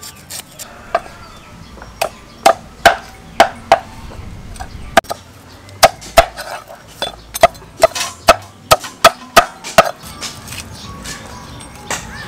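Cleaver chopping through a raw fish onto a wooden chopping board: a run of sharp, irregular chops, about two a second, from about two seconds in until near the end.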